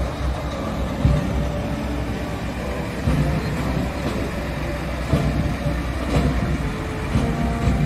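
Motor vehicle engines running, a steady low rumble.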